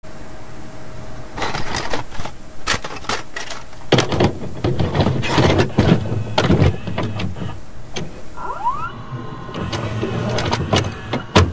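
Mechanical clicks and clunks with a small motor whirring, a brief rising whine about eight and a half seconds in, and one hard knock near the end.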